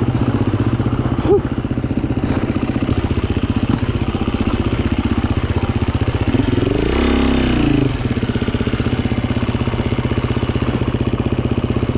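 GasGas 350 dirt bike's single-cylinder four-stroke engine running steadily under throttle on a rough trail, with one brief rev up and back down about six to eight seconds in.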